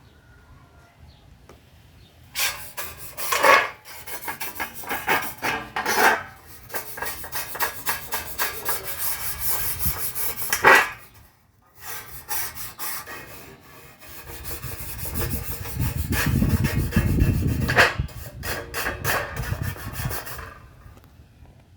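Rapid back-and-forth abrasive rubbing strokes on a hard surface, as in sanding or scrubbing a worn casing during restoration, in two long runs with a brief pause about halfway.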